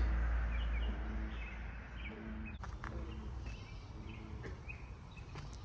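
American bullfrogs calling low from a pond in a few short drawn-out croaks, with small birds chirping briefly over them.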